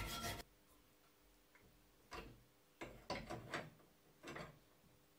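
Hand metal saw cutting an iron bar: a short stretch of rasping sawing that stops about half a second in, then a few faint, separate saw strokes.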